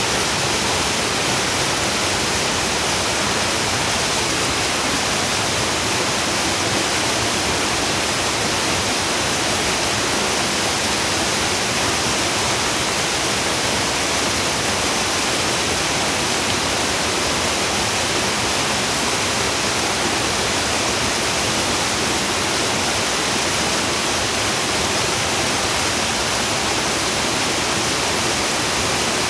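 Water of a mountain valley stream cascading, a steady, even rush that does not change.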